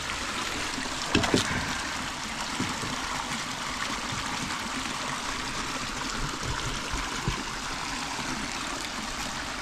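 Shallow creek water running steadily over stones, with a short clatter about a second in.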